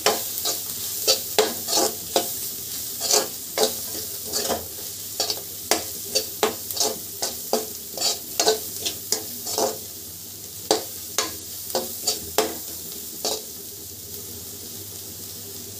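A metal spoon scraping and knocking around an aluminium kadhai as onion, capsicum and spices are stirred while frying in butter, over a steady sizzle. The strokes come about twice a second and stop near the end, leaving only the sizzle.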